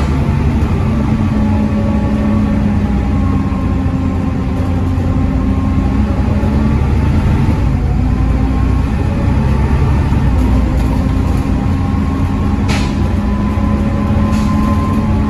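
Volvo D7C 7.3-litre diesel engine of a Volvo B7TL double-decker bus running steadily under way, with a whine that rises and falls over the engine note. One sharp click about twelve seconds in.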